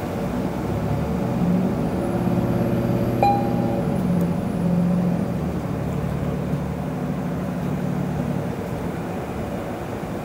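Inside a moving city transit bus: steady engine and drivetrain hum with road noise, swelling over the first few seconds and then easing off. A brief high tone with a click sounds about three seconds in.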